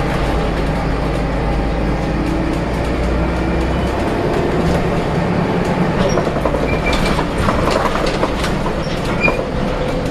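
Volvo B7RLE single-deck bus on the move, heard from inside: the diesel engine runs low underneath while the body and fittings rattle and click, with a few short squeaks. The engine note shifts about four seconds in, and the rattling gets busier in the second half.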